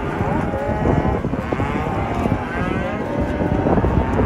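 A herd of cows and calves mooing and bawling, many calls overlapping at once.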